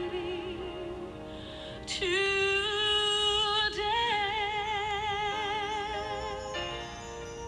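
Music: a solo voice singing long, held notes with vibrato over an instrumental accompaniment. A strong new note comes in about two seconds in, and near the end the voice drops out, leaving the accompaniment.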